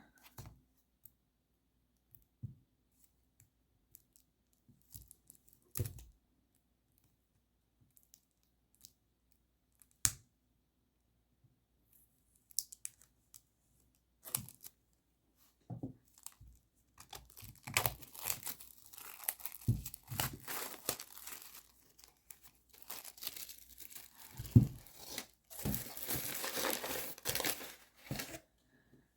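Cellophane wrap being torn and crinkled as it is peeled off a deck of tarot cards, filling roughly the last twelve seconds. Before that there are only scattered faint clicks and taps of handling. A single knock near the end is the loudest sound.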